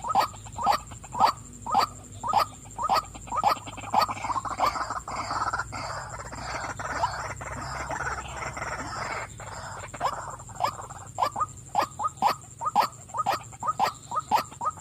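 Female white-breasted waterhen calling: a run of repeated croaking 'wak' notes about two a second, breaking into a denser jumbled chatter for several seconds in the middle, then returning to faster repeated notes.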